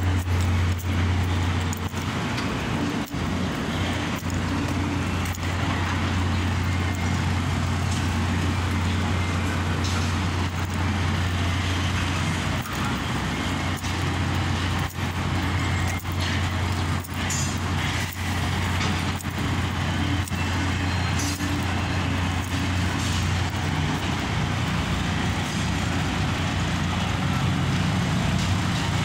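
Construction-site din carried by a steady low drone of heavy machinery, like a diesel engine running without change, with scattered sharp knocks throughout.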